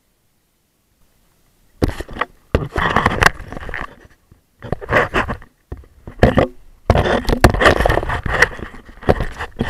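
Close handling noise of the camera: loud, irregular scraping and knocking as it is set down and fixed on a paddle board deck, starting about two seconds in.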